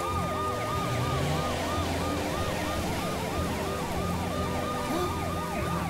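Animated rescue vehicle's emergency siren sounding a fast yelp, its pitch rising and falling about four times a second, over a low steady hum.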